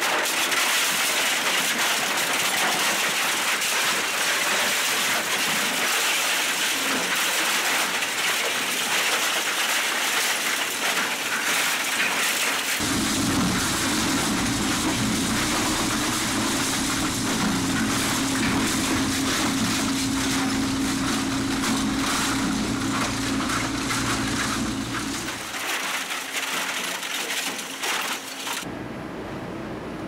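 SSI Quad four-shaft industrial shredder tearing up vacuum cleaners: a loud, continuous crackling and crunching of plastic and metal being cut apart. About 13 s in, a steady low hum from the machine joins the crunching, and near the end the sound drops to a quieter background.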